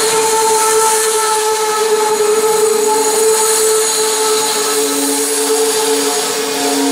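Passenger train cars rolling past close by: a steady rush of wheels on rail with a steady whine at one pitch, joined by a lower tone about two-thirds of the way through.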